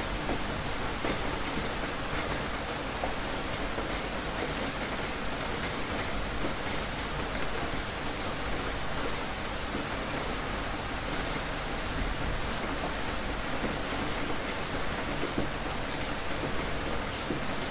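Heavy rain falling in a steady, even hiss of drops.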